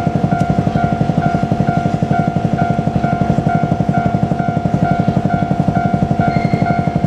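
Japanese level-crossing warning bell ringing in a steady electronic ding about twice a second, over the running of the diesel engine of a JR Kyushu KiHa 47 railcar at the crossing.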